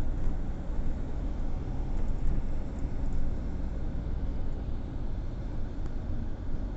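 Steady low rumble of city traffic, with no distinct events standing out.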